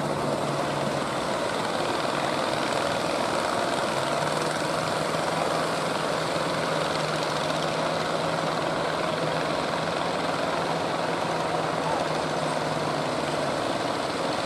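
Engine of a wooden fishing boat running with a steady drone, over the wash of breaking surf.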